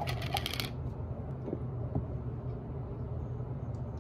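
A plastic yogurt tub's lid being pulled off, a quick run of crackly clicks under a second long, then a few faint spoon taps and scrapes in the tub over a steady low hum.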